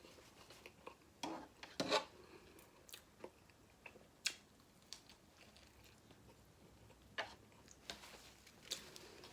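A person chewing a bacon cheeseburger close to the microphone. Faint wet mouth sounds, with a scattered handful of sharp clicks and smacks, the loudest about two seconds in and near the end.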